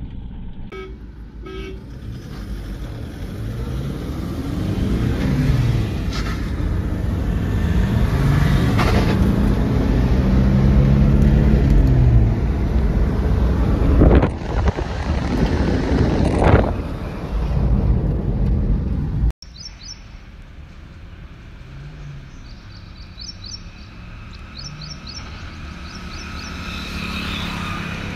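SUV engine accelerating hard at full throttle, its pitch climbing and dropping back with each gear change, with gusts of wind noise. About two-thirds of the way through the sound cuts off abruptly to a quieter engine running at low revs.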